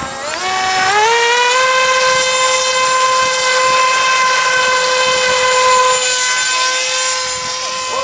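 Radio-controlled model airplane's propeller motor throttling up for takeoff: its pitch climbs over the first second and a half, then holds a steady, loud whine at full throttle as the plane flies off.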